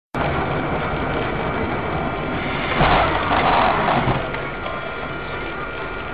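Car engine and road noise heard from inside a moving car through a dashcam's microphone, steady, with a louder stretch about three seconds in.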